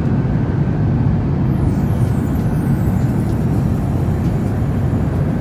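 Steady low roar inside an airliner cabin in flight: engine and airflow noise.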